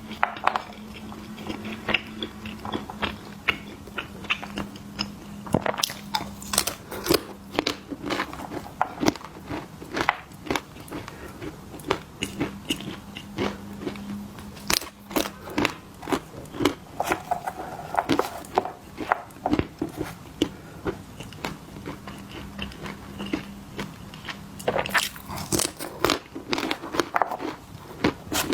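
Close-miked person biting and chewing crunchy snacks: a rapid, irregular run of sharp crunches, over a faint steady low hum.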